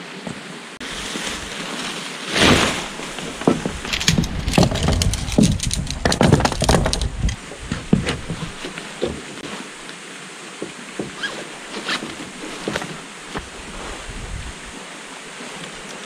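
Steady rush of a mountain stream, with a run of knocks, rustles and clatter from about two seconds in to about eight seconds in, then scattered clicks.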